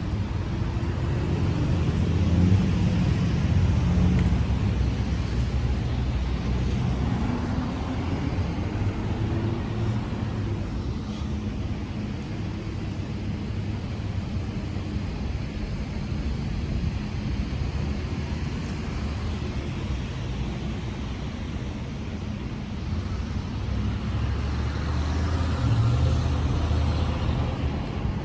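Road traffic noise: a steady low rumble of vehicles, swelling louder a couple of seconds in and again near the end as vehicles pass.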